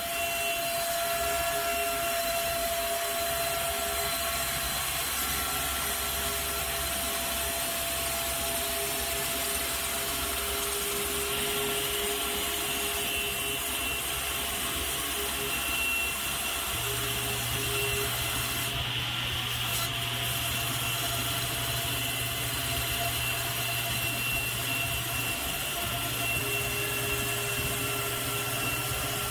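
Table saw running steadily, its blade cutting into a wooden bar held in a dowel-rounding jig. About two-thirds of the way through, the low hum steps up in pitch.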